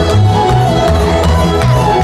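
Serbian folk dance music for a kolo, with a melody line over a steady beat and a repeating bass line.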